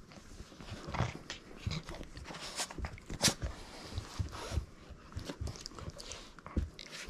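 Boston terrier playing roughly with a stuffed toy: dog noises mixed with the scuffle of paws and plush, in short irregular bursts, with one sharp click about three seconds in.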